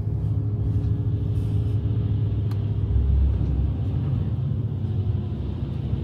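A motor vehicle running: a steady low engine and road rumble with a faint steady hum over it.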